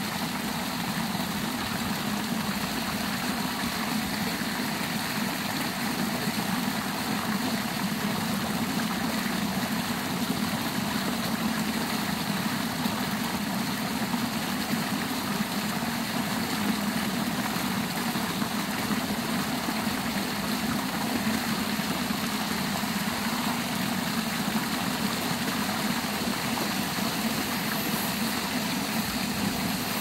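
Water pouring steadily from three wall-mounted water descent (sheer-descent) spouts and splashing below, a continuous rush of water with a low hum underneath.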